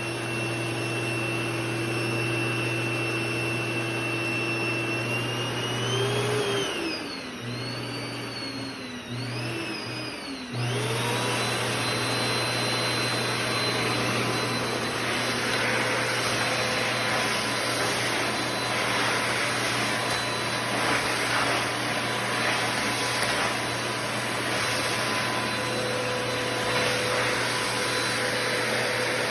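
Electrolux Sonic vacuum cleaner motor running steadily, then about six seconds in its pitch sags and wavers and it nearly cuts out several times before abruptly picking up again at a steady speed: the fault of the motor failing and stopping.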